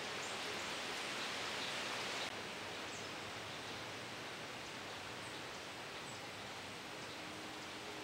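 Steady outdoor background hiss, a little louder for about the first two seconds, with a few faint, very short high-pitched chirps of small birds.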